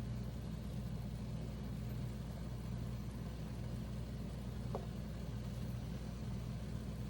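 Steady low mechanical hum with a faint hiss, even throughout.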